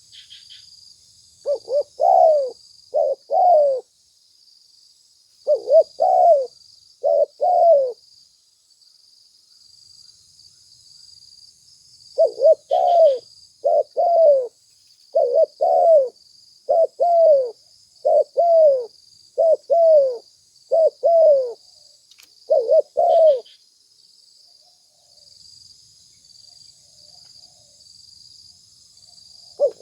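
Spotted dove cooing: repeated phrases of short, mellow notes, each bending downward, with pauses of a few seconds between bouts. A faint steady high hiss runs underneath.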